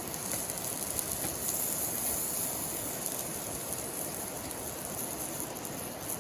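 River water rushing steadily, a strong, even flow.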